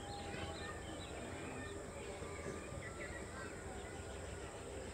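Faint open-air background with birds chirping on and off, over a low steady hum.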